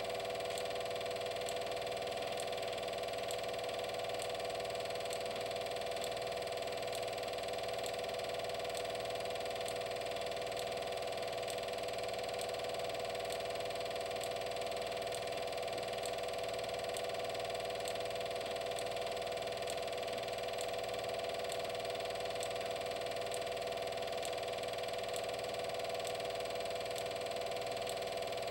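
Steady whirr of a film projector's motor and mechanism running, with a faint, even ticking over a constant hum.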